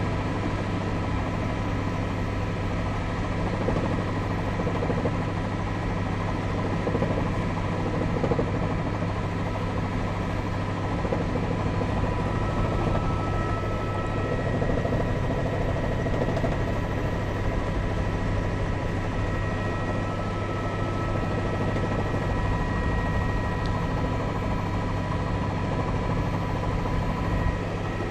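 Steady drone of a helicopter's engine and rotor, with a low hum and a few steady high tones over it.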